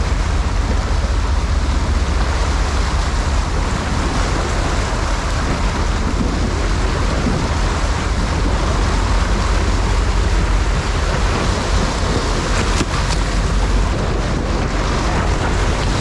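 Steady wind on the microphone over sea water and a boat's low rumble: a heavy, even rush with hiss above it. A faint click comes about thirteen seconds in.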